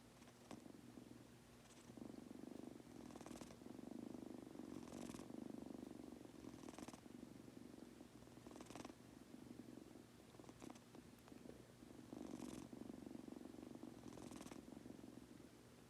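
Munchkin kitten purring continuously, the purr swelling and easing with each breath about every two seconds, with a soft breathy rush at each breath.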